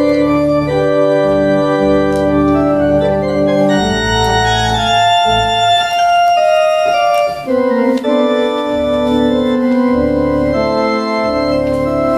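Organ playing slow, sustained chords. The deep bass notes drop out for a few seconds in the middle and then come back under the chords.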